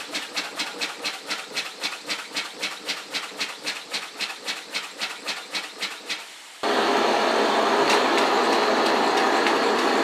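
Homemade steam engine running on steam, chuffing in even beats of about five a second that slowly weaken as the boiler runs short of heat. About six and a half seconds in, a steady, louder rushing hiss cuts in abruptly.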